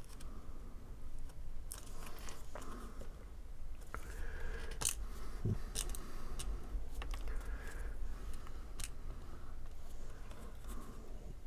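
Scattered light clicks, taps and scrapes of small paper card pieces being handled and pressed into glue, over a steady low hum.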